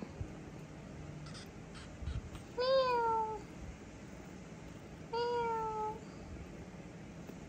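A kitten meowing twice, about two and a half seconds apart, each meow rising and then sliding slightly down in pitch.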